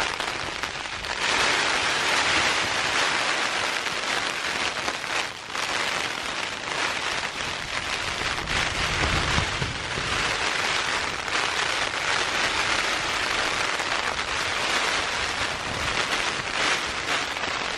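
Heavy rain pelting the Dyneema fabric of a Zpacks Altaplex tent, heard from inside, a dense, steady hiss of drops with wind gusting against the shelter. The rain is driving hard enough to splash in through the gap at the storm flap.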